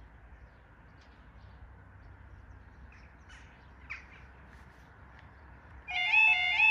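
Level crossing audible warning alarm starting about six seconds in: a loud, repeating two-tone warble that rises on each note, marking the start of the crossing's closing sequence as the amber road lights come on. Before it, a quiet outdoor background with a low rumble and a few short bird calls.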